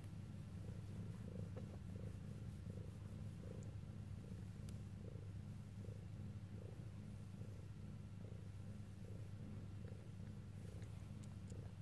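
A long-haired calico mother cat purring steadily while she is stroked and nurses her newborn kittens, a low continuous rumble with a soft regular pulse about twice a second.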